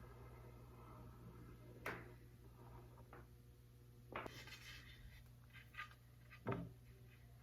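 Near silence with a low steady hum and a few faint clicks and knocks, the loudest about six and a half seconds in.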